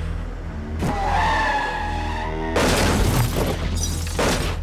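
Heavy, solemn drama music. About a second in comes a pitched screech, and from about two and a half seconds in a loud burst of crashing, smashing noise.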